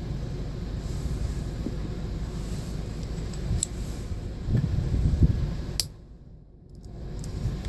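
Steady low mechanical rumble with a few faint light clicks. The rumble grows louder shortly before the end, then briefly drops away.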